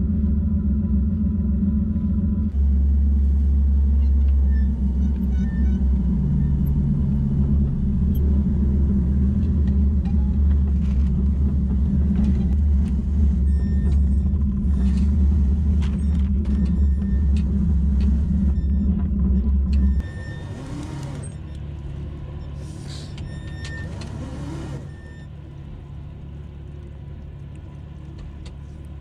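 Fishing boat's engine running with a deep, steady rumble while the heavy net is hauled up; about two-thirds of the way through the rumble drops away sharply to a quieter running, then eases down once more a few seconds later. Scattered knocks and a couple of short rushing noises come over it near the change.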